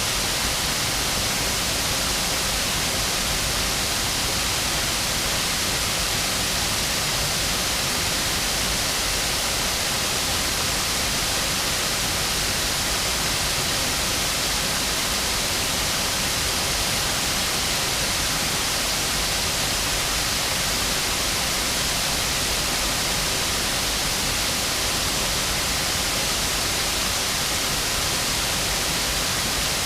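A river waterfall rushing, a steady, unbroken roar of falling water.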